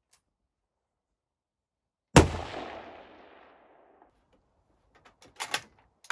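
A single rifle shot about two seconds in, its echo rolling away over the next couple of seconds, followed near the end by a few short clicks.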